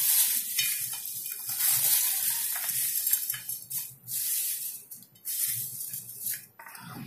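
Dry roasted flattened-rice chivda with peanuts and fox nuts being tossed and mixed by hand in a glass bowl: a crisp rustling of the flakes that comes and goes in uneven surges.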